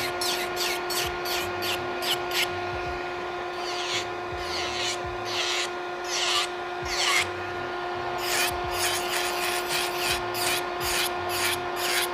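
Electric nail file with a ceramic bit grinding down a gel-and-acrylic nail to remove bulk: repeated short rasping passes over a steady motor whine.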